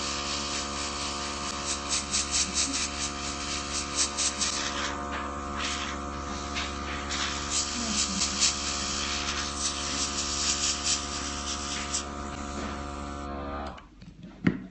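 Small airbrush compressor running with a steady hum while the airbrush hisses in short spray bursts of paint onto a nail tip. The compressor and spray stop suddenly near the end, followed by a sharp click.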